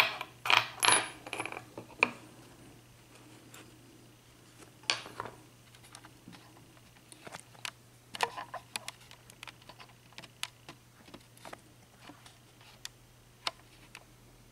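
Small lock pins from a gutted padlock cylinder clicking and clinking as they are handled and set down on a hard surface: a quick rattle of clicks at the start, then scattered single ticks.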